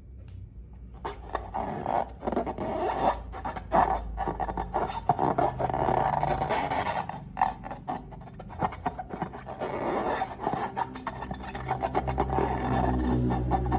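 Close-miked crackling, squishing and rubbing of slime being worked by hand, starting about a second in and going on in irregular bursts.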